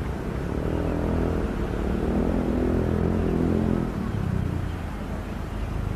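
Hitachi Zaxis 200 excavator's diesel engine working under hydraulic load as the bucket digs in and lifts a load of mud and bamboo roots. The engine note swells from about half a second in and eases about four seconds in.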